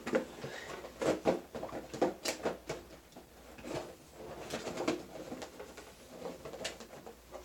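Items being handled and taken out of a subscription box: irregular rustling, taps and clicks of packaging and small objects.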